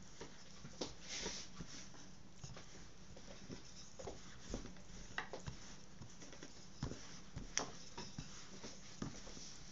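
Thin wooden rolling pin rolling pizza dough out on a floured worktop: soft rubbing with scattered light clicks and knocks at irregular intervals, over a low steady hum.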